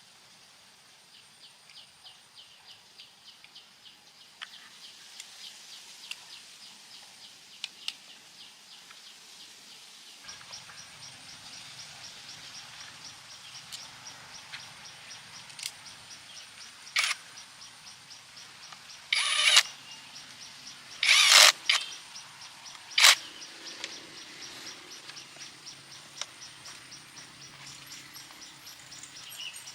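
Rapid, regular chirping, about six high ticks a second, typical of an insect such as a cricket or cicada; it grows louder about a third of the way in. In the middle, four short, loud bursts of noise cut across it, one of them lasting about a second.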